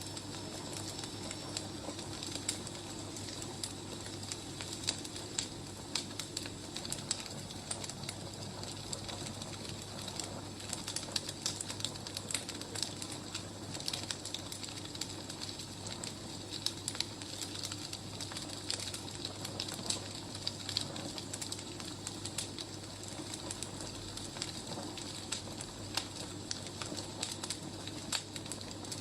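Wood fire crackling: many scattered sharp pops and snaps over a steady low hiss.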